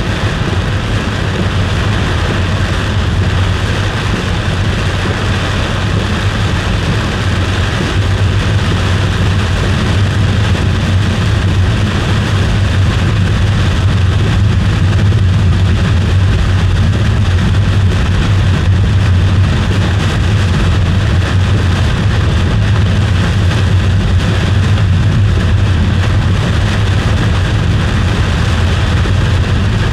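A car driving at speed: steady road and engine noise, slightly louder from about eight seconds in.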